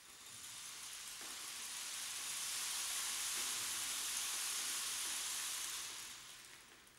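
Large rainstick turned over, its filling trickling down through the tube in a rushing, rain-like hiss that swells over the first couple of seconds, holds, and dies away near the end.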